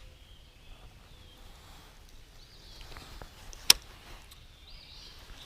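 Quiet early-morning outdoor ambience with a few faint bird calls, broken once about two-thirds of the way in by a single sharp click.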